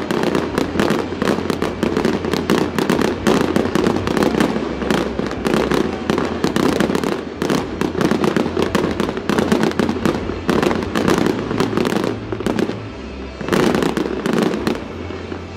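Aerial fireworks crackling and banging in a rapid, dense barrage, easing off about thirteen seconds in, flaring once more, then thinning out near the end. Music plays underneath.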